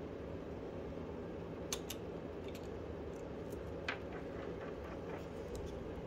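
A few light clicks and taps of a plastic pry tool and small parts handled on an opened smartphone and the desk, the sharpest about four seconds in, over a steady low hum.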